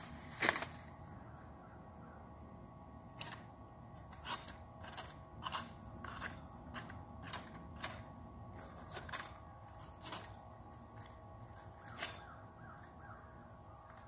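Hand pruning shears snipping through small branches: a string of short, sharp cuts at irregular intervals, about fifteen in all, the loudest near the start and again about twelve seconds in.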